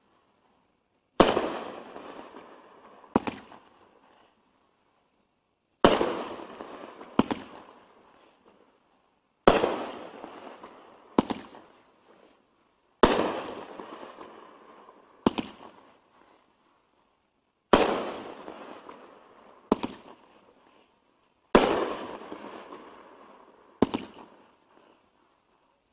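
Multi-shot aerial firework cake firing shot after shot. Six times a loud bang fades away over a second or two and is followed by a smaller bang about two seconds later, with a pause of a second or so before the next.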